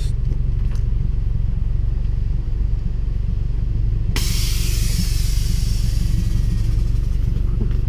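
A Subaru WRX's turbocharged flat-four idling steadily through a newly fitted Tomei catback exhaust, a low rumble. About four seconds in, a hiss cuts in suddenly and runs almost to the end.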